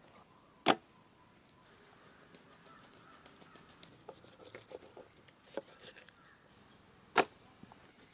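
Two sharp chops of a knife cutting through a large catla fish and striking a wooden cutting board, about six seconds apart, with faint knife and handling clicks between them.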